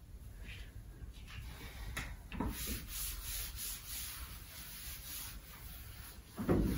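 A cloth rubbing over a chalkboard, wiping chalk off in a run of short back-and-forth strokes. Near the end comes a short, louder low sound.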